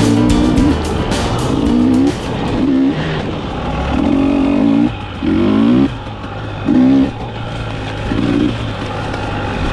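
KTM 300XC two-stroke dirt bike engine revving in short, irregular bursts of throttle, about seven blips with the pitch rising in each. Music plays under it during the first couple of seconds.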